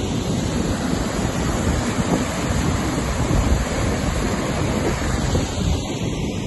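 Flooded river pouring over a weir: a steady rush of churning white water, with wind buffeting the microphone.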